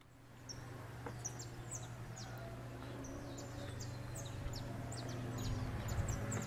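Small birds chirping: many short, quick high chirps that fall in pitch, several a second, over a steady low hum.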